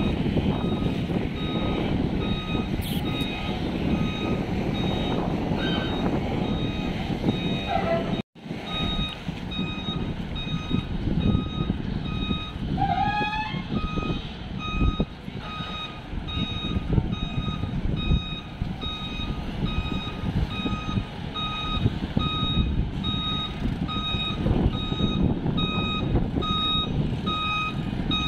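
Truck reversing alarm beeping steadily over the low rumble of diesel truck engines; the beeps grow louder about eight seconds in.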